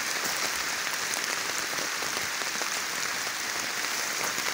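Steady rain falling, a dense even hiss full of small drop ticks.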